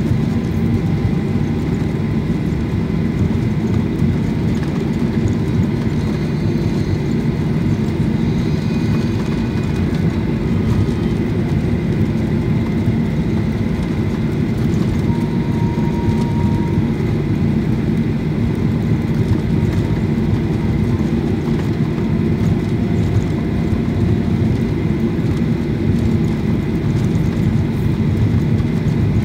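Cabin noise of a Boeing 737 jet airliner taxiing: a steady low rumble from the jet engines at low thrust, with a faint steady high whine.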